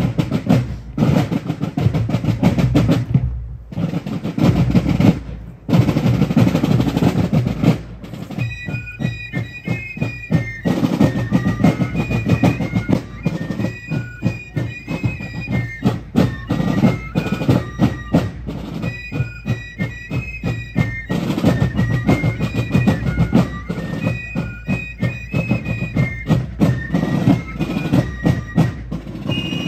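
Fife and drum corps playing on the march: the drums beat a cadence with rolls on their own, then fifes come in about eight seconds in and play a tune over the drums.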